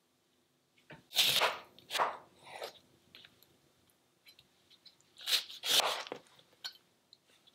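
Kitchen knife cutting through a lemon on a cutting board: a few crisp, crunchy cuts with the blade knocking on the board, in two short clusters about a second in and about five seconds in.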